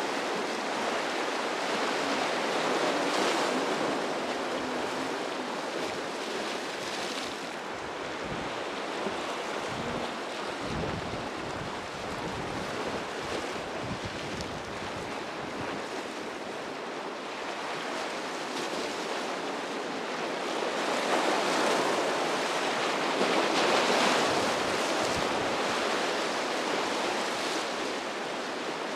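Ocean surf breaking and washing in rough water, swelling louder near the start and again about two-thirds of the way through, with wind buffeting the microphone.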